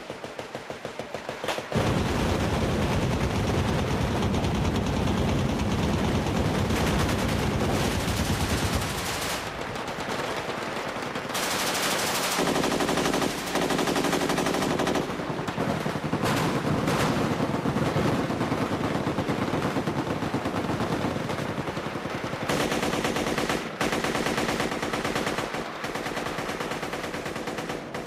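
Automatic gunfire: machine guns and an AK-47 assault rifle firing long full-auto bursts, the shots coming so fast they run together. It is lighter for the first two seconds, then loud and continuous, shifting in character several times as different guns take over.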